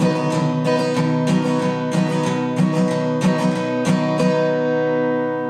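Acoustic guitar strummed in a steady rhythm, then a final chord about four seconds in that is left to ring and fade.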